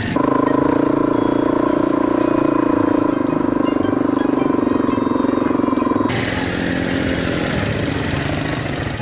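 A small engine running steadily with a fast, even pulse, cutting off abruptly about six seconds in.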